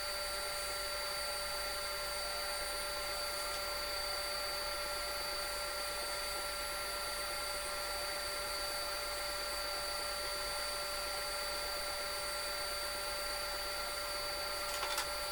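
Table saw running freely with no cut being made, its motor and spinning blade giving a steady, constant whine that does not change in pitch. A brief knock sounds near the end.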